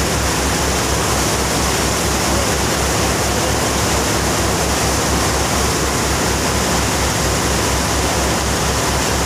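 A river taxi boat under way: the engine's steady low throb, about five beats a second, under the loud steady rush of the wake churning behind the stern.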